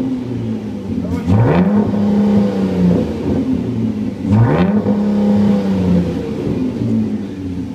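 Dodge Journey V6 with a Borla aftermarket exhaust, free-revved twice while stationary. Each rev climbs quickly, about one second in and again about four seconds in, holds briefly, then falls back to a steady idle.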